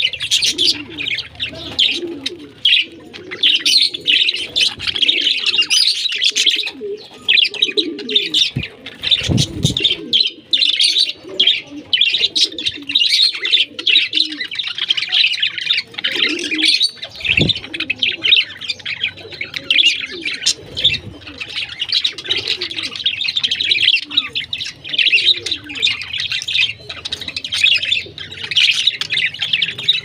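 A flock of budgerigars chattering and warbling, a dense, unbroken stream of quick high chirps with softer lower calls beneath. Two brief low thumps stand out, about a third of the way in and again a little past halfway.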